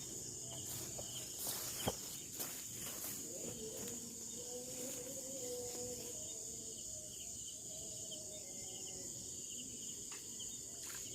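Steady high-pitched insect chorus of crickets, with a few faint clicks about two seconds in.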